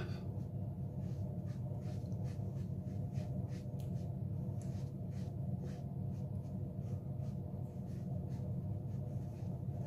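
Makeup sponge dabbing concealer and foundation onto the skin of the face: soft, irregular pats, a couple a second, over a steady low hum.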